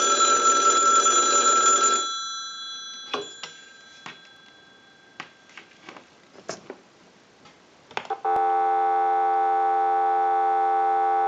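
Payphone bell ringing for about two seconds on a ring cycle, then dying away. A few clicks follow, and about eight seconds in a steady telephone dial tone starts.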